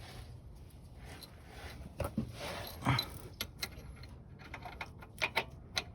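Hand tools and bolts being handled: scattered metallic clicks and short rattles, busiest around two to three seconds in and again near the end.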